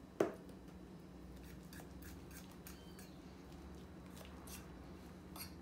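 A sharp clink about a quarter second in, then faint soft scraping and light taps of a spoon stirring thick banana-oat batter in a ceramic plate.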